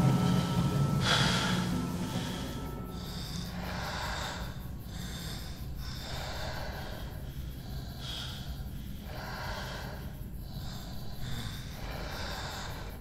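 Heavy, slow breathing, the breaths coming in an even rhythm about every one and a half seconds, over a low steady drone.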